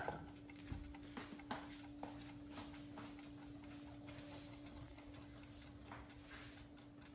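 Tomato-shaped mechanical kitchen timer, just wound to 40 minutes, set down on the counter with a knock and then ticking faintly as it counts down, over a steady low hum.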